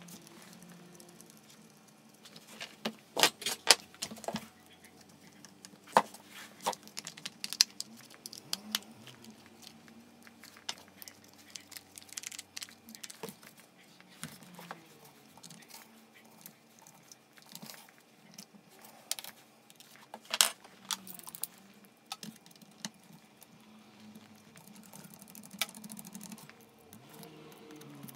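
Handling and reassembly of a Panasonic EZ75A7 impact driver: scattered clicks, taps and rattles of its plastic housing and small parts being fitted together by hand. There is a cluster of louder clicks a few seconds in and a single sharp one about twenty seconds in.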